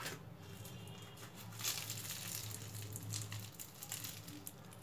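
Crisp deep-fried pastry crust of an egg patty crackling faintly as it is broken open by hand, a run of small crackles starting about a second and a half in.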